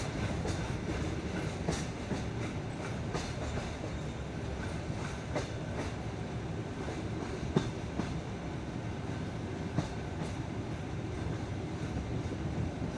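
Passenger railway carriage rolling along the track: a steady rumble of the wheels with irregular knocks as they cross rail joints, the sharpest about seven and a half seconds in.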